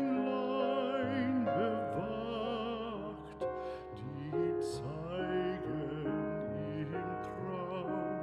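Background classical music in operatic style, its melody held on long notes with a wavering vibrato.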